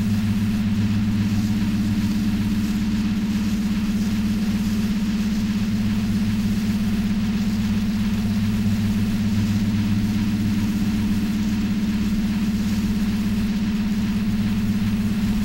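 A steady low drone, unchanging throughout, with a thin hiss above it: ambient and environmental sound run through a mixer oscillator and a Korg analog synthesizer.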